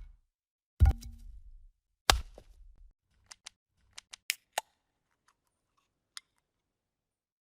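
Editing transition sound effects: two sharp impact hits with a low thump tail, about a second apart, followed by a scattered run of short dry clicks.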